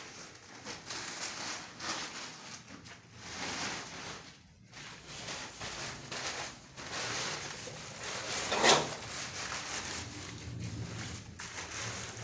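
Repeated scraping and shuffling from tiling work, in uneven swells, with one louder scrape about nine seconds in.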